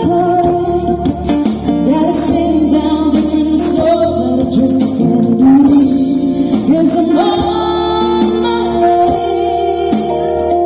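A woman sings a wavering melody live into a microphone, over held chords from a Roland GO:KEYS keyboard and light percussion taps.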